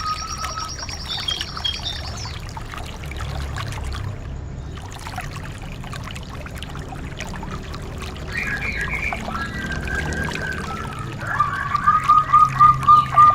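Recorded songbird calls: a rapid high trill that stops about two seconds in, then after a lull some lower chirps, and near the end a loud run of about seven quick, evenly spaced notes. A steady low background noise runs under the calls.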